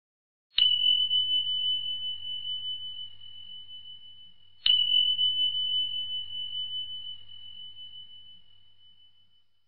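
Notification-bell sound effect: a single high-pitched bell ding struck twice, about four seconds apart, each ringing out slowly with a slight wavering as it fades.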